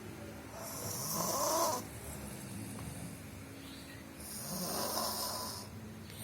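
A sleeping person snoring: two long snores, each about a second and a half, roughly three and a half seconds apart.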